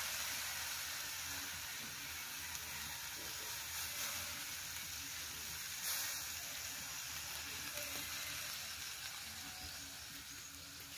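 Chopped grilled chicken sizzling in a hot metal pan as soy sauce is poured in: a steady frying hiss that slowly dies down, with a brief swell about six seconds in.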